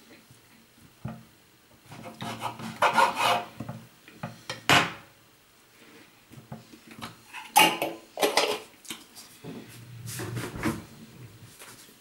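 Household handling noises: objects being rubbed and scraped against each other in several short bouts, with one sharp knock about five seconds in.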